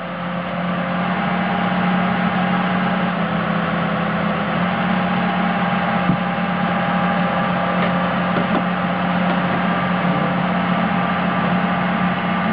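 Excavator's diesel engine running steadily under load as its boom lowers the bucket, a constant low drone with a faint steady whine above it.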